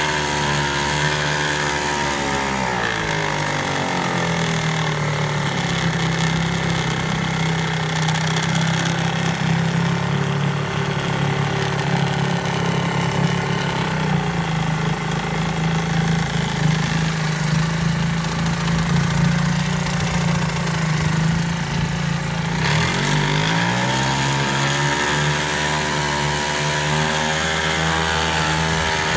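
Ted Williams two-stroke single-cylinder outboard motor running in a test barrel, its propeller churning the water. It throttles down within the first few seconds, idles steadily, then speeds up again a little after twenty seconds in and holds the higher speed.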